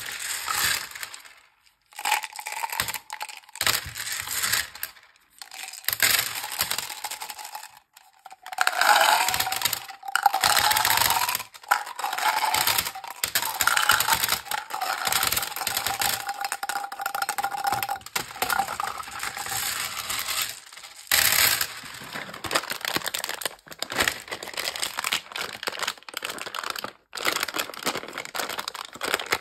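Hands handling sweets and their packaging: hard candy-coated sweets clicking and rattling in small plastic containers and on a tabletop, with plastic caps being worked. Near the end a plastic sweet wrapper crinkles as it is opened.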